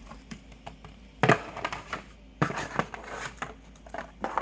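Hands handling an unboxed meter kit's plastic packaging and cables: rustling and clacking, with sharp knocks about a second in, halfway through and near the end.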